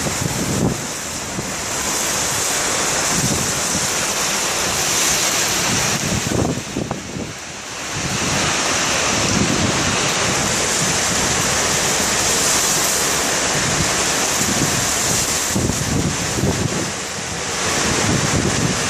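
Ocean surf breaking in loud, steady swells, with wind buffeting the microphone; the noise dips briefly about seven seconds in.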